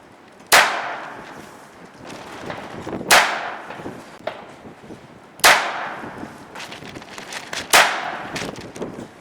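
.22 Long Rifle revolver fired four times, about two and a half seconds apart, each shot sharp and followed by a ringing decay lasting a second or more.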